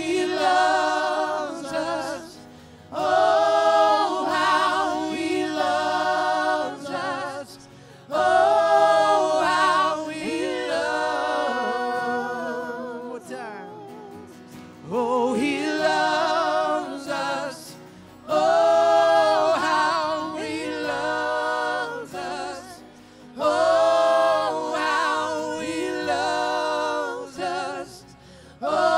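Church worship singing: voices singing a gospel-style worship song in phrases a few seconds long, with short breaks between them.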